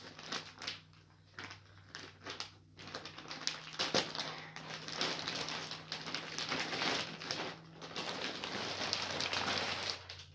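Clear plastic packaging bag being torn open and pulled off a blanket, crinkling. It gives a few scattered crackles at first, then crinkles continuously from about three seconds in.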